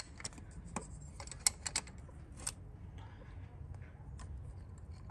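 Scattered light clicks and ticks of pliers gripping and twisting a pump-duce unit injector in a 1.9 TDI cylinder head, working it loose from its bore. The plainest clicks come about one and a half and two and a half seconds in.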